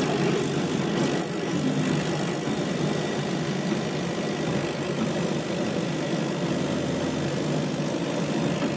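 K40 CO2 laser cutter running with its lid open while it cuts a foam sheet: a steady machine hum from its air-assist pump and cooling-water pump as the cutting head moves over the sheet.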